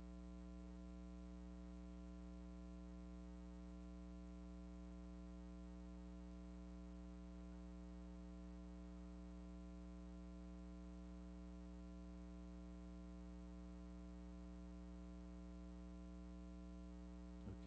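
Faint, steady electrical mains hum in the church sound system: a low buzz with many evenly spaced overtones, unchanging and with nothing else over it.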